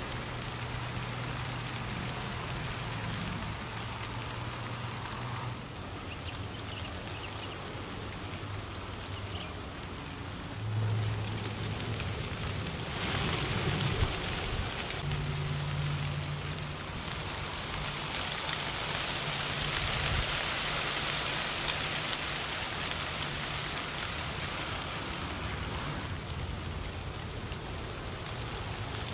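Dry autumn leaves rustling, a steady crackling hiss that gets brighter and a little louder about halfway through, with a low steady hum underneath.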